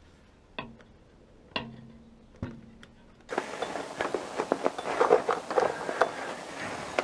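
A motorcycle swing arm being worked into its frame. Three separate metal knocks, each with a short ring, are followed about three seconds in by a steady run of scraping, rattling and small clicks as it is pushed into place.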